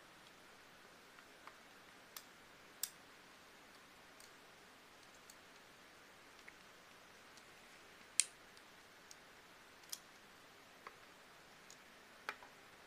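Scattered small, sharp clicks and taps at irregular intervals from the blue plastic casing and scroll wheel of a disassembled Logitech M275 wireless mouse being handled. The loudest click comes about eight seconds in.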